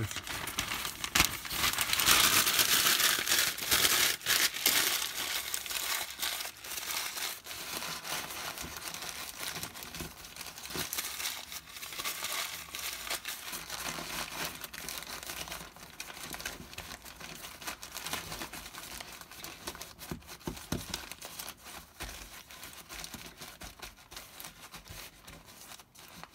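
Newspaper crumpled and scrunched by hand, loudest for a few seconds near the start. It then goes on as lighter crinkling and rustling while the paper is pressed and tucked into place.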